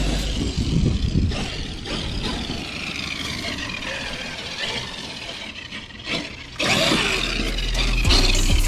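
Traxxas X-Maxx RC monster truck driving over grass, its brushless electric motor whining and falling and rising in pitch with the throttle, with drivetrain and tyre noise. It gets suddenly louder about seven seconds in.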